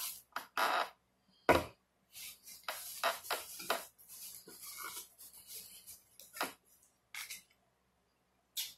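A person chewing and smacking food close to the microphone: an irregular run of short, sharp mouth sounds, with one louder, sharper one about a second and a half in.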